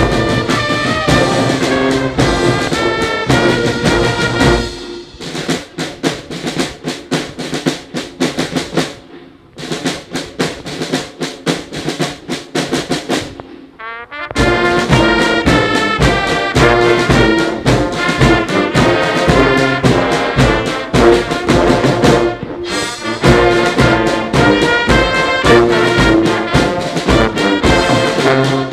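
Brass band music with drums, trumpets and trombones playing. It drops to a softer passage about five seconds in and comes back in full about fourteen seconds in.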